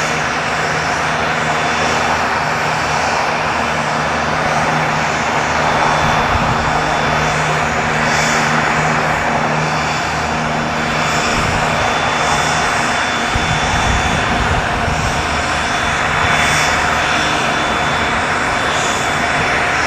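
Aircraft engine running close by, a loud steady drone with a low hum. About two-thirds of the way through the low hum fades and an uneven low rumble takes over.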